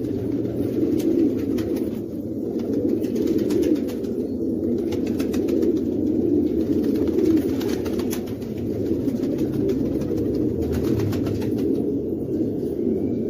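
Domestic pigeon cooing, a low, continuous cooing with faint clicks over it.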